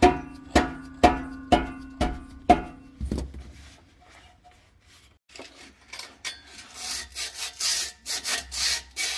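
Hammer blows on an exhaust pipe or muffler, about six strikes at two a second, each ringing with a clear metallic tone. After a short pause comes a run of quick rasping strokes.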